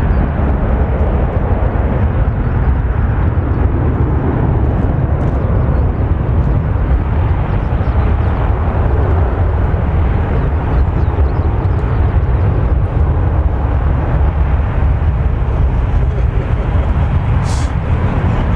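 Jet engines of a Boeing 737-800 airliner rumbling steadily as it climbs away after takeoff. The sound is a deep, even rumble, with a brief click near the end.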